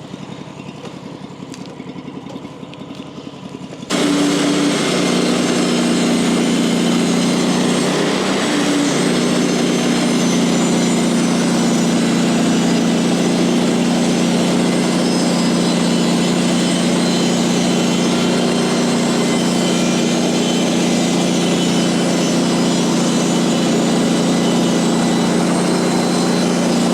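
Small engine running steadily, quieter at first and then suddenly much louder about four seconds in, with a brief dip in pitch around eight to nine seconds.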